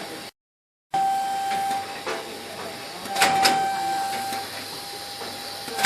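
Soap packaging and labelling machine running: a steady high whine over a constant noise, with sharp mechanical clacks coming at irregular intervals. The sound drops out to silence for about half a second near the start.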